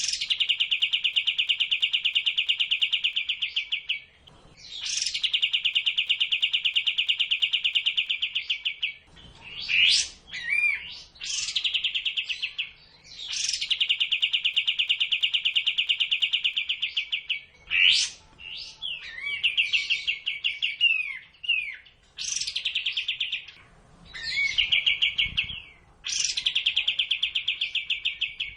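Recorded kapas tembak birdsong used as a masteran training track for cage birds. Long, fast, buzzing trills of a few seconds each repeat with short breaks between them, broken up here and there by quick sweeping whistled notes.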